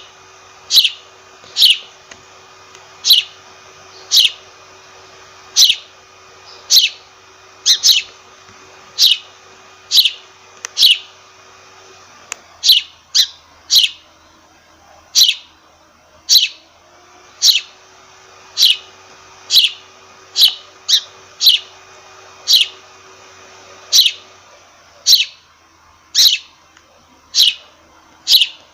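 Sparrow chirping over and over: short, sharp chirps that drop in pitch, about one a second, sometimes coming in quicker pairs.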